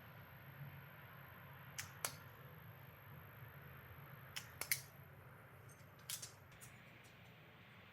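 A few light, sharp clicks and taps in small clusters of two or three, over a faint low hum.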